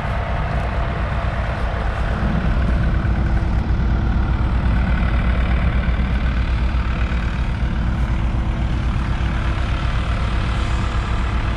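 Heavy diesel equipment engines idling steadily, warming up after a start.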